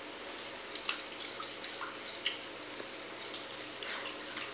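A hand mixing and squeezing watery pakhala rice in a steel bowl: soft wet squelches and drips with small clicks against the bowl, scattered every second or so over a steady background hum.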